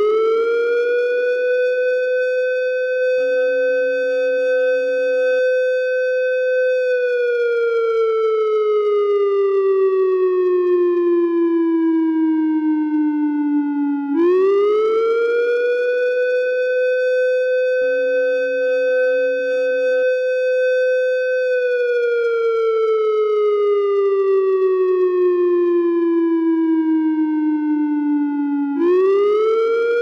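US military base 'Alarm Red' wail siren: a tone that rises quickly, holds, then slides slowly down before rising again, about every fourteen to fifteen seconds. It signals that a sustained, complex or coordinated attack has been detected.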